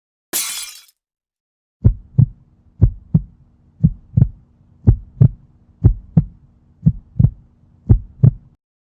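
Heartbeat sound effect: seven deep double thumps (lub-dub), about one beat a second, over a faint low hum.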